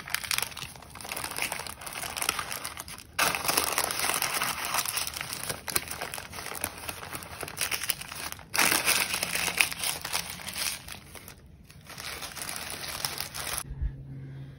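Thin white paper crinkling and rustling as hands fold and roll it tightly around a shawarma roll, louder about three seconds in and again about eight and a half seconds in. The crinkling stops shortly before the end.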